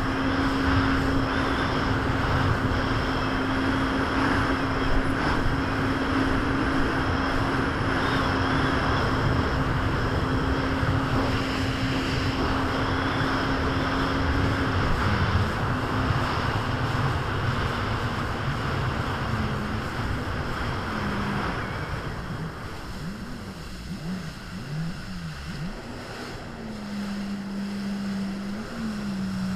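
Jet ski engine running at a steady high speed, with wind and water rushing past. About halfway through the throttle comes off: the engine note drops, wavers up and down for a few seconds, then settles into a lower steady run near the end.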